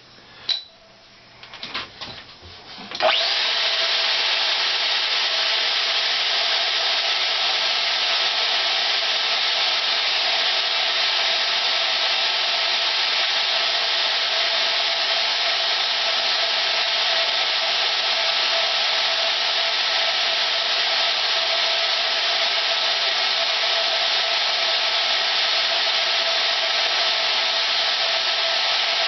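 DeWalt DWM120K portable band saw switched on by its foot switch about three seconds in, then running steadily while sawing through a workpiece. A few faint clicks come before it starts.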